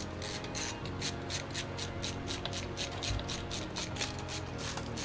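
Screwdriver tightening the mounting screws of an AIO liquid cooler's pump block onto the CPU: a quick, even run of short scratchy clicks, about four or five a second.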